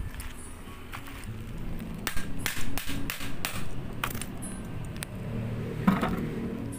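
Several sharp metallic clanks and knocks as an alternator and tools are handled, a quick cluster about two to three and a half seconds in and one more near the end, over a low steady hum.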